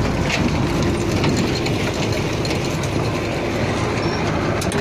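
Tractor-drawn grain seed drill sowing peas: a steady mechanical clatter of its drive and seed-metering gear, full of small clicks, with the tractor engine running underneath.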